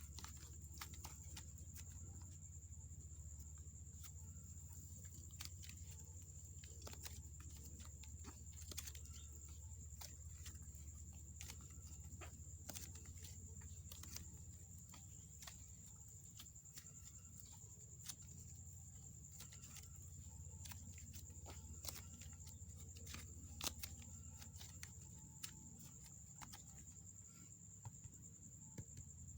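Faint, irregular small clicks and pops of soft clay slime being kneaded and stretched by hand, over a steady low hum and a faint high-pitched whine.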